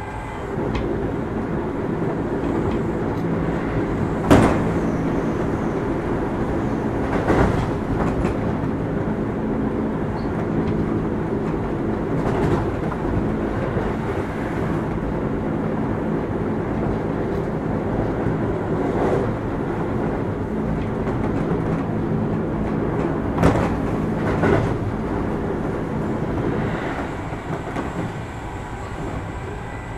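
Interior running sound of a Keio 8000 series electric train at a steady speed: a continuous rumble and hum of the wheels and motors, with about half a dozen sharp clicks as the wheels pass over track joints. A faint high whine fades out just after the start and comes back near the end.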